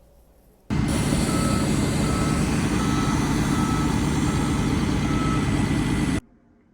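A vehicle's reversing alarm beeping about six times, one beep every three quarters of a second, over loud steady noise. The sound starts and stops abruptly.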